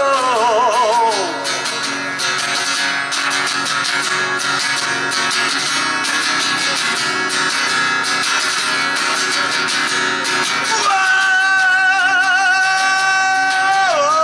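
A man sings to his own acoustic guitar. A wavering vocal line falls away in the first second, guitar carries the middle, and a long held sung note with vibrato begins about three-quarters of the way through and steps down near the end.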